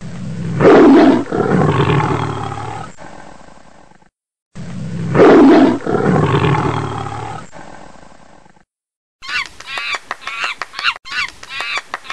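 A big cat's deep roar, heard twice in exactly the same form, each loud at first and fading away over about three seconds. From about nine seconds in, it gives way to a quick run of short, high, honking calls, each falling in pitch.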